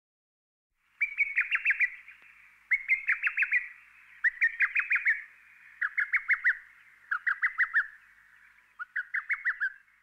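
A bird calling in six short phrases about a second and a half apart, each a quick run of five or six chirps.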